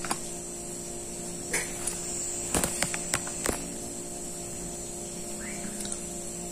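Steady electrical hum with a thin high whine, and a few short sharp clicks a little past halfway from eating by hand: chewing crisp fried shallots and fingers touching the plate.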